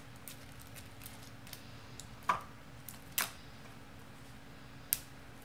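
A small plastic Mash'ems toy capsule being twisted and pulled open by hand: faint scattered ticks and crinkles, with three sharper clicks about two, three and five seconds in.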